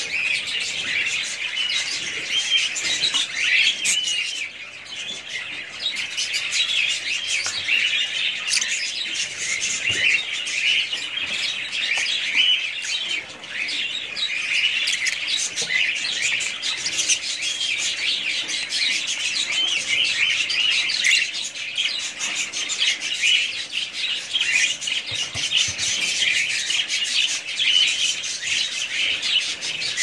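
Fischer's lovebirds chattering: a dense, continuous run of high-pitched chirps and squeaks from several birds at once.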